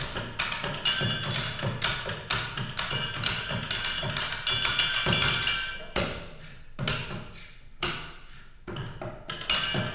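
Percussion ensemble playing office supplies (pencils, a water bottle and a computer keyboard), a dense run of quick taps and clicks. About six seconds in it thins to single strikes roughly once a second, each ringing briefly, before the taps grow busier again near the end.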